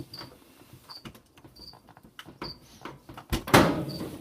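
Knocks and clicks of an electric clothes dryer's power cord being unplugged behind the machine, with a louder scraping clatter about three and a half seconds in. A cricket chirps faintly throughout.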